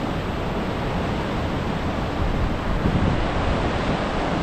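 Ocean surf washing against a rocky shore, mixed with wind on the microphone: a steady rushing noise.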